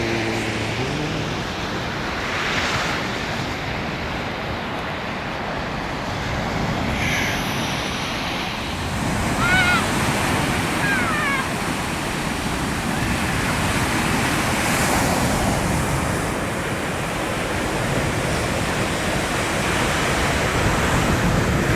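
Sea waves breaking and washing up a beach, a steady rushing that swells and ebbs. A few short, high falling calls come about ten seconds in.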